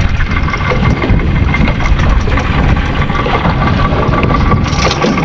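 Wind buffeting an action camera's microphone in a small open boat: a steady, loud low rumble, with a faint steady whine over it. A brief hiss comes in near the end.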